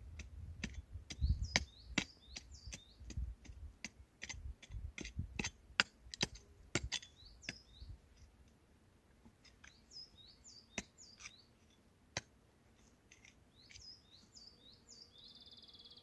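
A quick run of sharp knocks and clicks with some low rumble during the first half, while birds chirp on and off throughout; a short even trill near the end.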